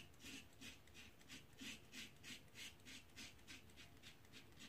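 Safety razor scraping through lathered stubble on the cheek in short, quick strokes, about three a second, faint.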